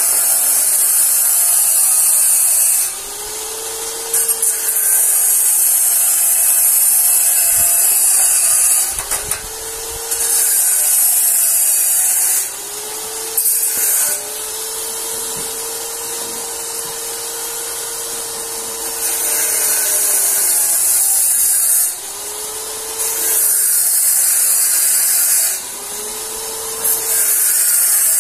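Stick arc welding on steel: the electrode sizzles and crackles in runs of a few seconds, broken by short pauses between beads. A faint tone rises and falls in the pauses.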